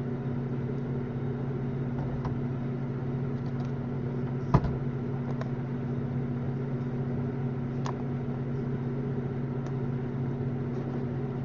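Steady low hum with a few light clicks and taps from a box of trading cards and their packaging being opened and handled, the sharpest click about four and a half seconds in.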